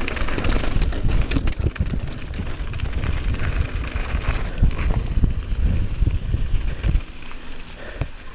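Mountain bike rolling fast down a gravel road: tyres crunching and rattling over loose stones, with a low wind rumble on the microphone. It turns quieter about seven seconds in.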